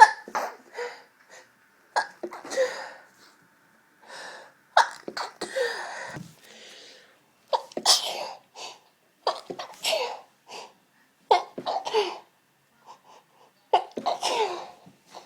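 A person sneezing over and over in a fit brought on by pepper dust, with sharp sneezes every second or two, often in close pairs.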